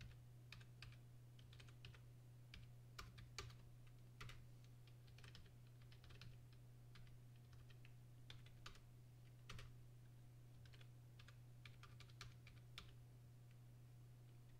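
Faint, irregular keystrokes of typing on a computer keyboard, over a steady low hum.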